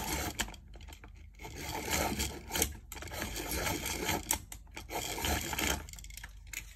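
A Brutfuner coloured pencil being sharpened in a pencil sharpener: scraping, grinding shaving noise in several bursts with short breaks and a few clicks. The pencil came from the factory unsharpened.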